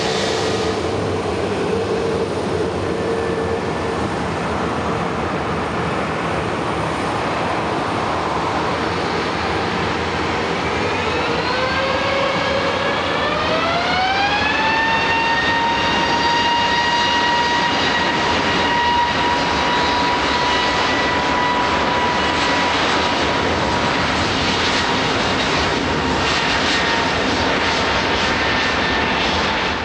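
Engines of an easyJet Airbus A320neo-family jet airliner running with a loud, steady rush. About halfway through, a whine rises in pitch over a few seconds as the engines spool up, then holds steady.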